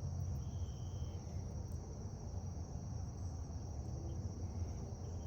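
Steady high-pitched insect drone, like crickets, over a low background hum, with a brief high note about half a second in.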